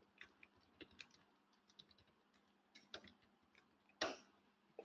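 Faint, irregular computer-keyboard keystrokes: a few scattered soft clicks, with one louder keystroke about four seconds in.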